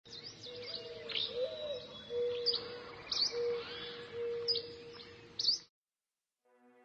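Birds chirping and calling, with many short high sweeping chirps over a low steady whistled note repeated about once a second; it cuts off suddenly near the end.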